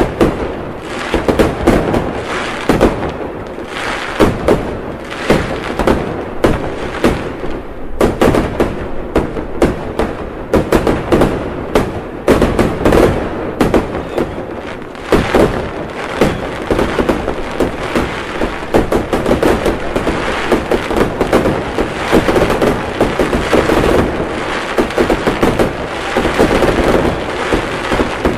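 Fireworks display: a dense, unbroken run of bangs and crackling, many reports a second, loud throughout.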